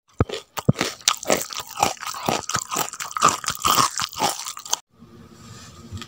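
Close-miked crunchy chewing: a quick run of crisp crunches and bites that cuts off abruptly near the end.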